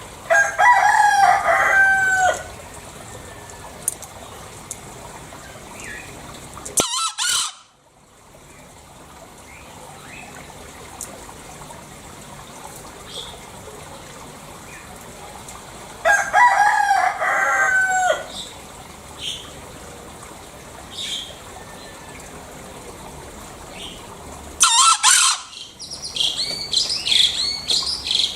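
Green junglefowl crowing twice, about sixteen seconds apart; each crow is a short, harsh, pitched call lasting about two seconds. Two brief, sharp, very loud high-pitched calls fall between the crows, and a run of high chirping starts near the end.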